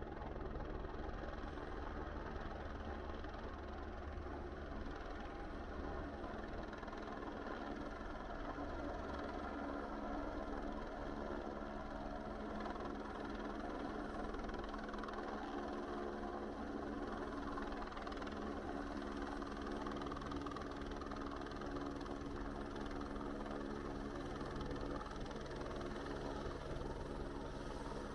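A steady, unchanging mechanical drone, like an engine running at constant speed.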